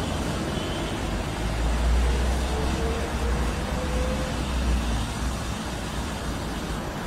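Hot air gun of a Quick 712 rework station blowing steadily onto a chip on a phone motherboard, heating its solder to desolder and lift off the IC: a steady rush of air with a low rumble underneath.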